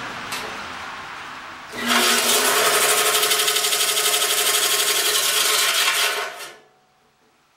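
14-inch wood bandsaw running on freshly fitted tires, with a loud, rapidly pulsing rubbing noise: the saw is rubbing on everything, with parts set too close. The noise gets much louder about two seconds in and winds down about six and a half seconds in.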